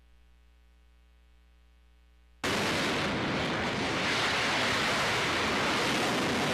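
Faint steady hum, then about two and a half seconds in the sudden, loud, steady rushing noise of a cruise missile's booster firing at launch from a warship.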